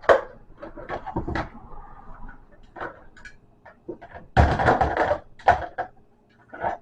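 Plastic game controllers and accessories being handled and set in place: scattered knocks and clicks, with a louder clatter about four and a half seconds in.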